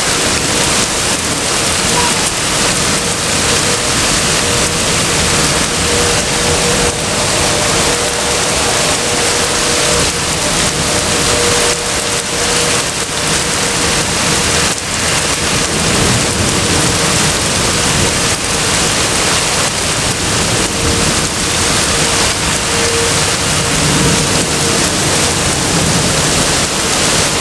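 Heavy rain pouring down, a loud, steady, dense hiss.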